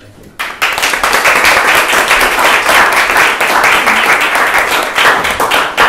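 Small audience applauding, a dense patter of clapping that starts about half a second in and dies away near the end.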